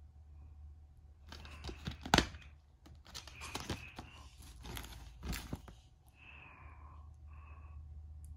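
Black plastic DVD case being handled and opened: a loud sharp click of the case snapping open about two seconds in, then crackly clicks and rustle of plastic as the case and disc are handled.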